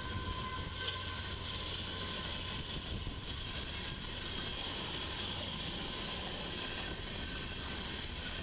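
Union Pacific coal train rolling past, a steady noise with faint high steady tones over it.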